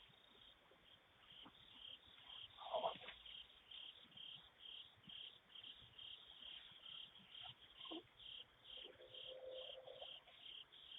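Crickets chirping steadily, about two chirps a second, faint. A brief louder noise about three seconds in.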